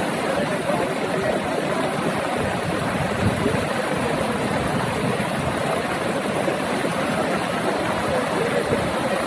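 Floodwater rushing across a submerged highway: a steady, unbroken noise of fast-flowing water.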